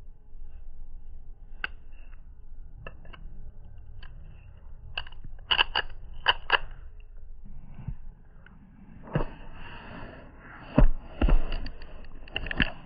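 Sharp metallic clicks, knocks and short scrapes from handling a key cutting machine, over a faint low hum, with a tight cluster of loud clicks about halfway through and a busier run of clicks and scraping near the end.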